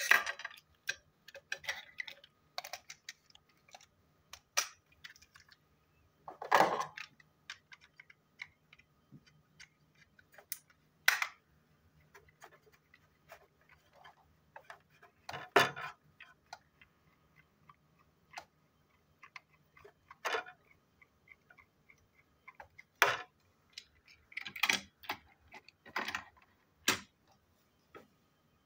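Irregular clicks, taps and handling knocks of a plastic toy train engine being screwed and fitted back together with a small screwdriver, with about a dozen louder knocks among the lighter clicks.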